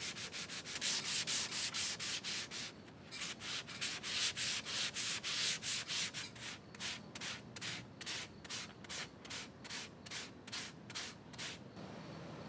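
Sandpaper on a hand sanding block rasping back and forth over a wood-veneered cabinet door in quick, even strokes, taking off the old finish. The strokes pause briefly about three seconds in and stop shortly before the end.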